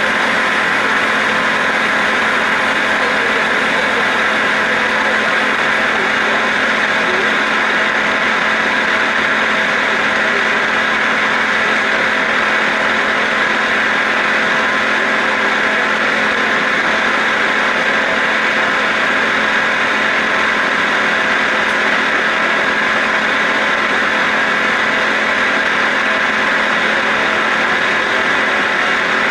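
CNC roll turning lathe cutting a large metal roll: a steady machining noise of the running machine and the tool shearing chips, a constant hiss with a steady hum, unchanging throughout.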